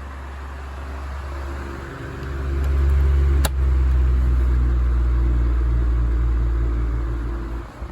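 A 16-inch Galaxy oscillating table fan running on high, its airflow buffeting the microphone with a low rumble that swells about two seconds in as the head swings toward it and fades near the end as it turns away. A single sharp click comes about halfway through.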